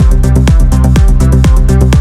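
Electronic dance music with a steady kick drum, a little over two beats a second, under held synth notes and a bass line.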